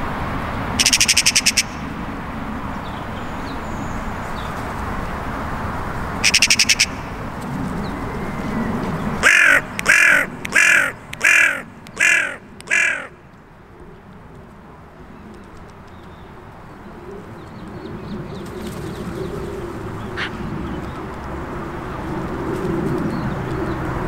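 Carrion crow cawing six times in quick succession, loud and evenly spaced, about midway through. Earlier there are two short, harsh rattling bursts, one near the start and one about six seconds in.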